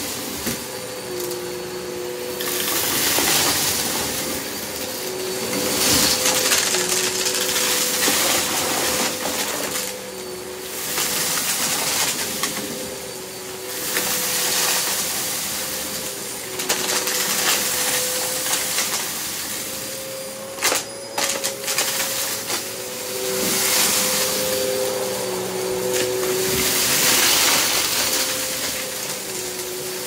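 Hoover bagless upright vacuum cleaner running on carpet, its motor holding a steady whine while loud hiss swells and fades every couple of seconds as it is pushed through and sucks up scattered plastic debris. A couple of sharp clicks come about two-thirds of the way through.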